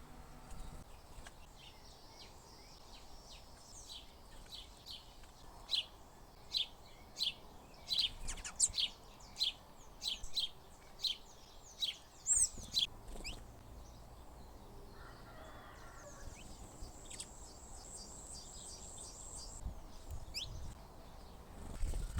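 Small wild birds calling at a fruit-and-seed feeding box: a run of about a dozen short, sharp, high chirps, one or two a second, through the middle, then fainter calls and a brief buzzy trill.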